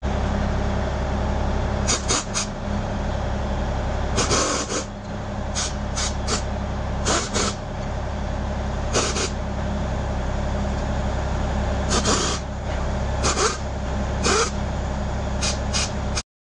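Pneumatic air hammer with a long punch bit hammering rapidly against the hub of an Isuzu NPR brake rotor, to drive the rotor off the hub. A steady, fast hammering is broken by about a dozen short, harsher bursts, and the sound cuts off suddenly near the end.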